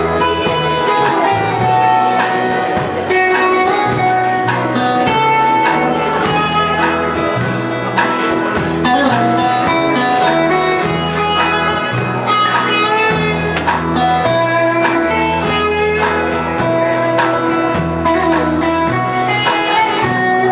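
Country band playing an instrumental break between verses: a guitar carrying the melody over a walking bass line and a steady beat.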